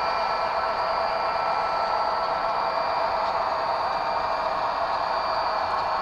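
HO scale Conrail diesel locomotives running past: a steady hissing drone with a few faint high whines over it.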